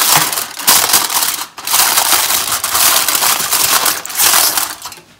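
Aluminium foil crinkling loudly as it is crumpled and pressed by hand into a lid over a glass, with a short break about a second and a half in; it dies away near the end.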